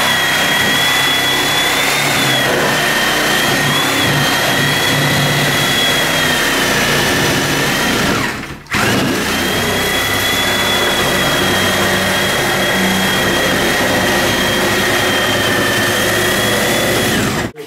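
Corded reciprocating saw cutting into wooden door framing at the king stud and header, running with a steady high motor whine. It stops briefly about halfway through, then starts again and runs until just before the end.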